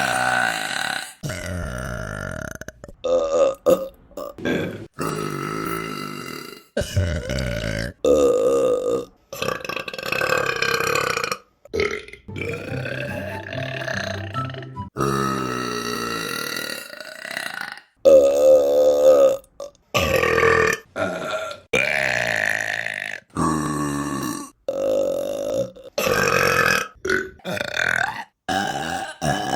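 Women burping in a rapid run of separate burps, cut back to back: some short, others long and drawn out with a wavering pitch.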